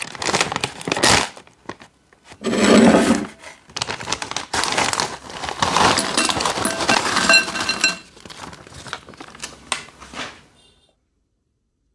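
A foil-lined snack bag of nacho chips crinkling as it is torn open and handled, then the chips tumbling out into a ceramic bowl with light clinks. The sound then cuts off suddenly.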